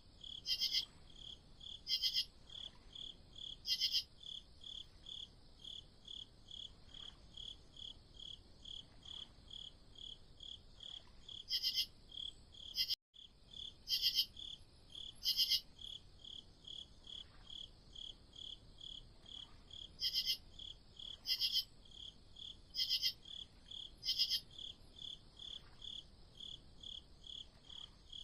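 Crickets chirping: a steady run of short, even chirps at two to three a second, with a second, louder and higher cricket joining in short spells every few seconds. The sound cuts out completely for a moment about halfway through.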